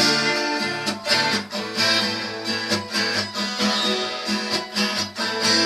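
Acoustic guitar strummed in a steady rhythm, chords ringing between regular strokes, as an instrumental break between sung verses.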